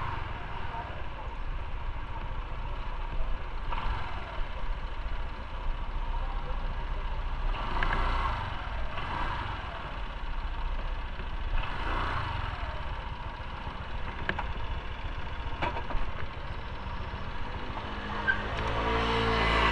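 Street noise heard on foot: a steady low traffic rumble with a few vehicles passing, and a motor vehicle's engine growing louder near the end.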